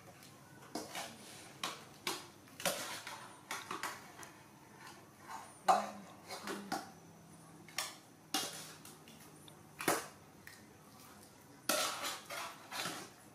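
Irregular clinks and knocks of aluminium cooking pots and a metal ladle, a dozen or so sharp taps spread through, the loudest about halfway.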